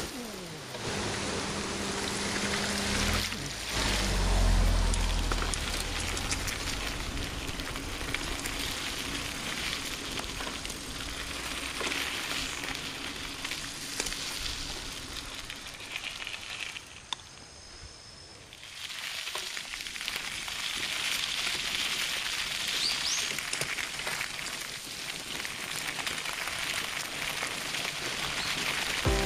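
Steady rushing hiss of a mountain bike being ridden: tyre and wind noise, with a low rumble about four seconds in and a short quieter moment past the middle.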